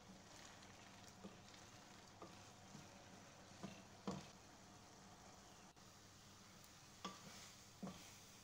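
Keema (minced meat) sizzling faintly in a steel pot as it is cooked dry, while a wooden spatula stirs it, knocking against the pan a handful of times, loudest about four seconds in.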